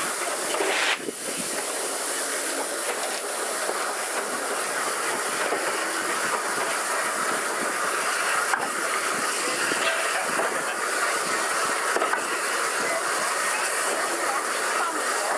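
Steady hiss and running noise aboard a train hauled by the steam locomotive Renishaw Ironworks No 6, with a short break about a second in and a few faint clicks later on.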